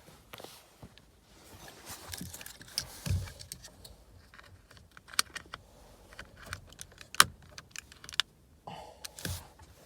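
Handling noise: a run of sharp clicks and light rattles from small hard parts being knocked and moved about, with the loudest click about seven seconds in.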